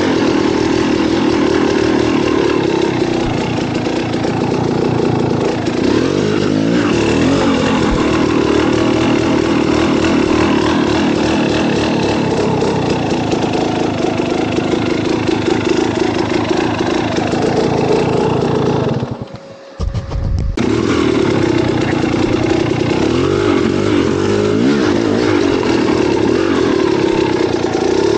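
A motorcycle engine running and revving up and down while riding a trail. About 19 seconds in it drops away sharply for about a second and a half, then comes back in.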